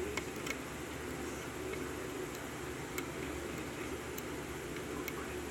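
A few faint, scattered clicks of a lock pick and tension wrench working the pins of a 5-pin Corbin Euro cylinder lock, over a steady hiss.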